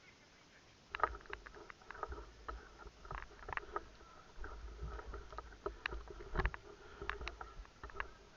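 Irregular small cracks and clicks over low thumps and rumble: a person moving through dry forest undergrowth, twigs and leaves snapping.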